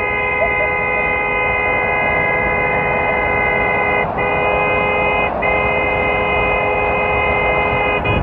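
Car horn held down in one long, steady blast, broken by two brief gaps about four and five and a half seconds in, and stopping near the end.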